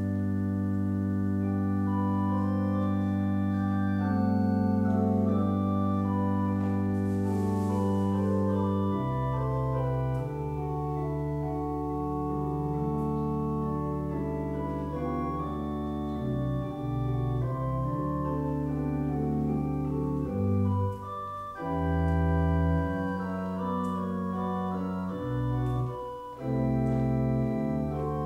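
Organ music: a full chord held over a deep bass for about nine seconds, then the chords change every second or two, with a few brief breaks between phrases.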